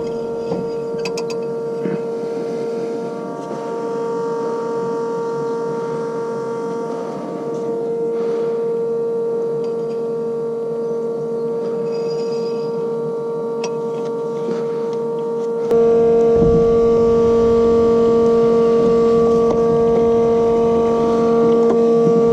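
Steady machine drone from farm machinery, with a constant whine held at one pitch. About three-quarters of the way through it abruptly grows louder and deeper.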